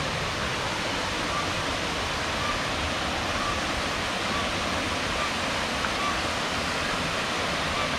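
Waterfall on a forest creek: a steady, unbroken rush of falling water.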